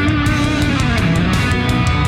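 Heavy rock background music led by guitar.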